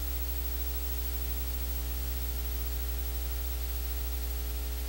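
Steady electrical mains hum with a faint buzz of overtones and an even hiss, the background noise of the sound or recording system; no other sound.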